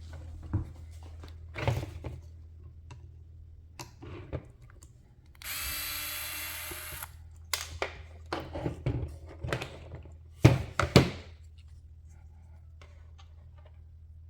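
Knocks and clicks of tools and small parts being handled on a workbench, with a short burst of a small power tool or motor running for about a second and a half partway through. The loudest knocks come in a quick cluster near the end.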